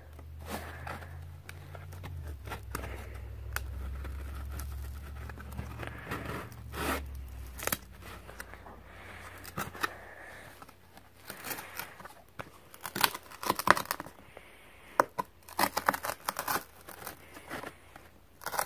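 Plastic and cardboard packaging of a colouring pack being handled: crinkling and rustling with irregular sharp clicks, coming thickest in the second half, as the marker and its plastic holder are worked.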